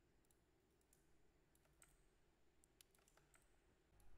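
Near silence broken by a few faint, scattered computer mouse clicks.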